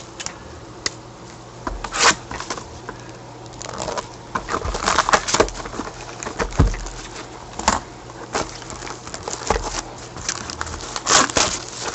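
Plastic shrink-wrap on a trading card box crinkling and tearing as it is pulled off by hand, in irregular crackling bursts that bunch up several times.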